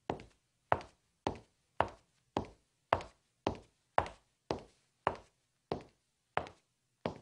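A steady, evenly spaced series of single knocks, a little under two a second, each short and dying away quickly.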